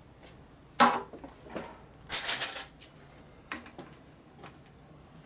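Metal clinks from hands working the motorcycle's control cables and fittings: a sharp clink about a second in, a short rattling scrape around two seconds, and a lighter click a little later.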